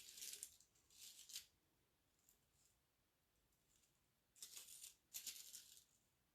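Faint rustling of craft pieces being handled and pressed into place, in four short bursts with near silence between them.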